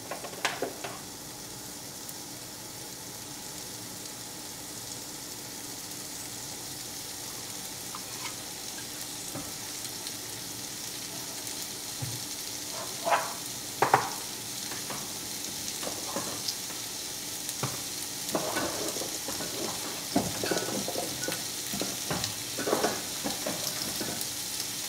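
Food sizzling and frying in a pan, a steady hiss, with a cooking spoon knocking and scraping against the pan now and then, more often in the second half.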